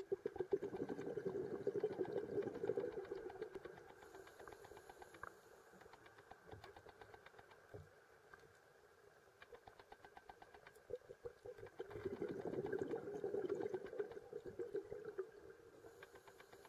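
Underwater, a scuba diver's exhaled bubbles rumble up twice, about ten seconds apart, over a constant fine crackle of snapping shrimp on the reef.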